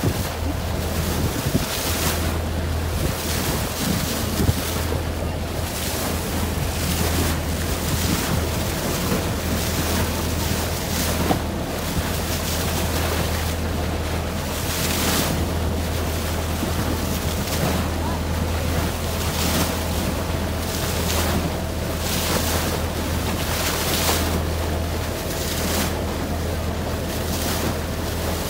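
A boat's engine running steadily under way, a low drone, with wind noise on the microphone and water rushing past the hull in uneven swells.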